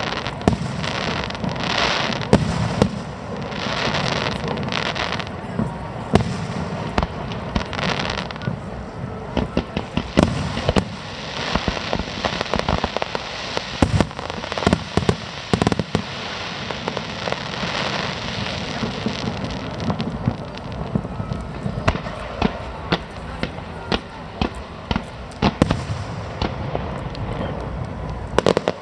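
Aerial fireworks display going off continuously: many sharp bangs and dense crackling over a steady hiss of shells bursting.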